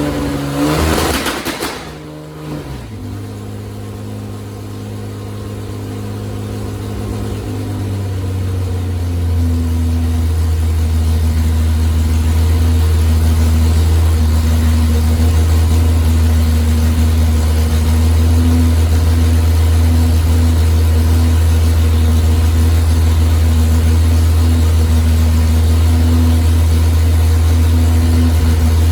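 Chrysler Hemi 265 straight-six engine revving briefly for the first two seconds, then settling into a steady, even idle.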